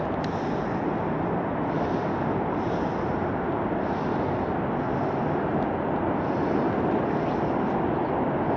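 Steady rushing of the South Platte River's flowing water, an even, unbroken noise.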